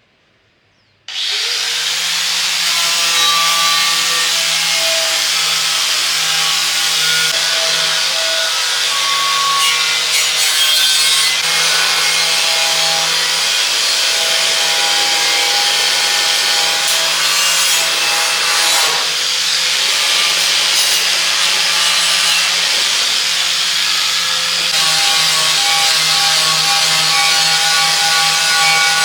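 A handheld power tool switches on about a second in and runs steadily under load, grinding or sanding a workpiece.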